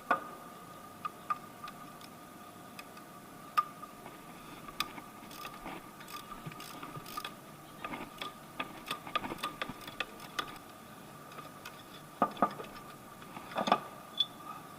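Irregular metallic clicks and knocks of hand tools, with a run of ratchet-like ticking in the middle, as an engine mount bracket is unbolted during a timing belt job. A faint steady high-pitched hum runs underneath.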